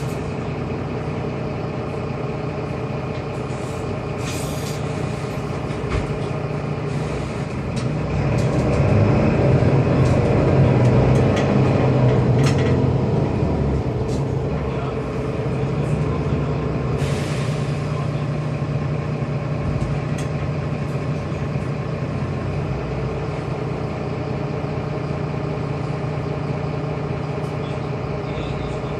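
Inside a Mercedes-Benz Citaro city bus on the move: the engine runs steadily and grows louder for a few seconds near the middle, with the body rattling and knocking. Two short hisses of air sound, one early on and one past the middle.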